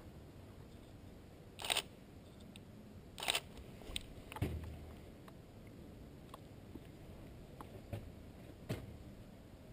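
Footsteps and bumps on a staircase: about six sharp, irregularly spaced knocks, with a deeper thud about four and a half seconds in.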